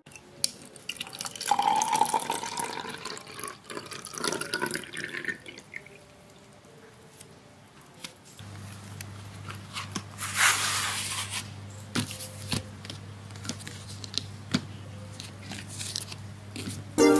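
Water poured into a clear plastic bottle, the pitch of the filling sound rising over the first few seconds as the bottle fills. Afterwards a faint steady hum with scattered light clicks and one short rush of noise.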